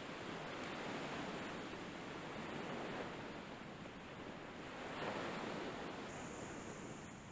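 Sea surf washing onto the beach: a steady rush of breaking waves that swells and eases every couple of seconds.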